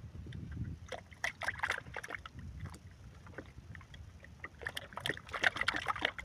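Water splashing and sloshing in two bursts of short strokes, about a second in and again near the end, over a low rumble.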